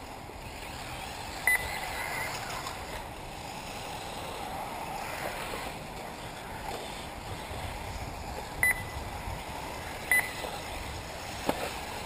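Three short, high electronic beeps, about 1.5, 8.7 and 10.2 seconds in, of the kind an RC race lap-timing system gives as a car crosses the line, over steady outdoor background noise from the track. A single sharp click comes near the end.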